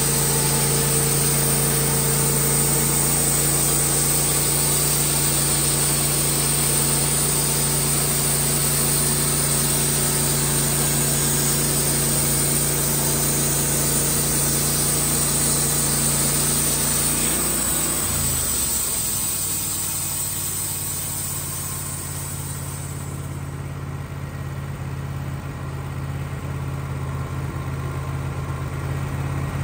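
Wood-Mizer LT15 band sawmill's engine running under load as the band blade saws through a cherry log, with a steady hiss of cutting and sawdust. About two-thirds of the way through, the engine drops in pitch and the cutting hiss dies away a few seconds later, leaving the engine idling steadily.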